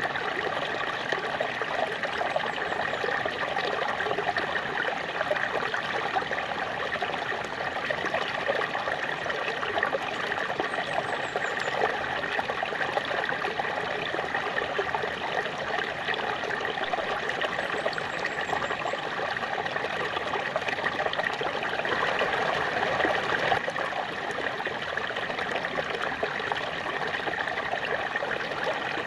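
Small waterfall splashing and running steadily, swelling slightly about two-thirds of the way in.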